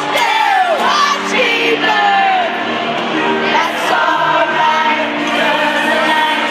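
Loud club music with singing, played over a nightclub sound system.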